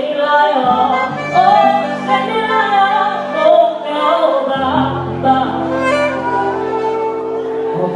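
Choir singing an anthem over sustained accompaniment chords, with the held bass notes changing about a second in and again around four and a half seconds in.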